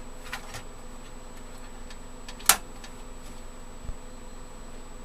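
Thin sheet-metal motherboard I/O shield being pressed into the computer case's rear opening: a few light metallic clicks and one sharp snap about two and a half seconds in, with a dull knock near the end, over a steady faint hum.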